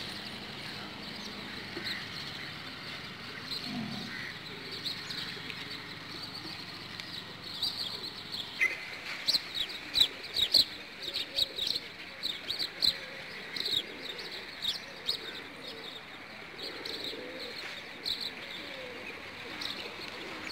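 A large flock of feral pigeons cooing and flapping their wings as they feed, with many quick, sharp bird chirps throughout that are thickest about halfway through.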